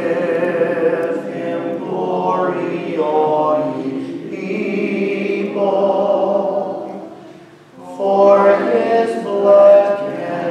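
Slow singing of long held notes in phrases, with a short break about three-quarters of the way through.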